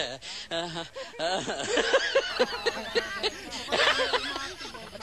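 People laughing and chuckling, mixed with bits of talk.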